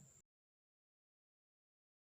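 Silence: a faint hiss of room noise cuts off suddenly a moment in, and dead digital silence follows.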